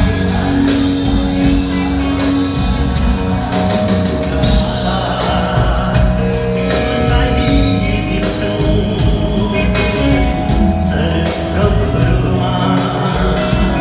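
A Nepali folk-rock band playing live with a male lead singer, electric guitars, bass, keyboard and drums, loud and continuous.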